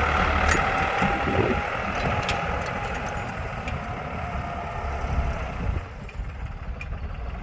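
An engine idling steadily, its low rumble easing off somewhat after the first couple of seconds.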